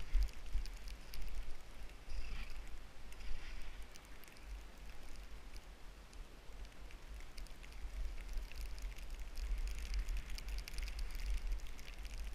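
Skis hissing and crackling as they slide through powder snow, under a low rumble of wind on the microphone. The crackle grows busier in the last few seconds.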